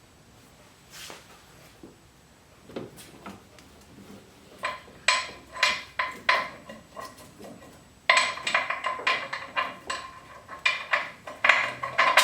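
Metal hand tools clicking and clinking in quick runs of sharp clicks with a slight ring, working bolts on the engine-to-transmission joint. The clicks start about a third of the way in and come thickest in the last few seconds.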